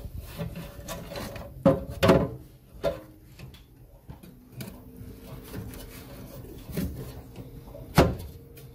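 Knocks and scraping of a replacement boiler fan unit being handled and pushed into place in its housing, with a few sharp knocks about two seconds in and one near the end. A faint steady hum sits underneath in the second half.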